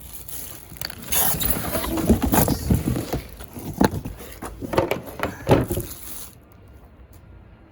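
Cardboard and packing material being handled while a boxed electric welder is unpacked: a few seconds of irregular rustling and scraping with several sharp knocks, then it settles.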